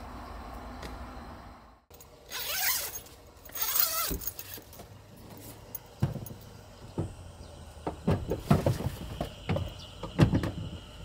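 A Renault Kangoo van's rear door being worked open from inside: two rasping strokes, then a run of clicks and knocks from the latch and door. A steady insect chirr comes in near the end.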